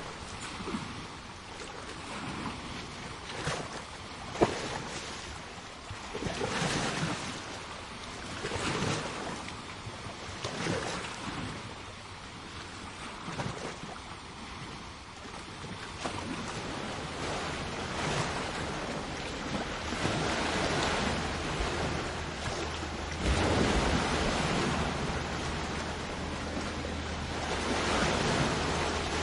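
Sea waves washing onto a shore: a steady rush of surf that swells and eases in irregular surges every few seconds. There is one sharp click about four seconds in.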